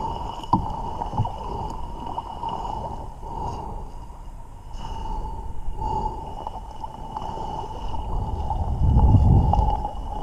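A dog whining on one high, unbroken pitch, over low wind rumble on the microphone that grows louder near the end.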